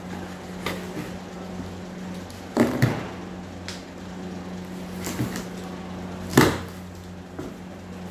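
Scattered knocks and thuds of a weighing machine's shipping box and packing being handled and opened, the loudest a pair about two and a half seconds in and another near six and a half seconds, over a steady low hum.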